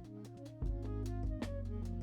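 Background music: a light instrumental track with a steady beat, plucked notes and bass.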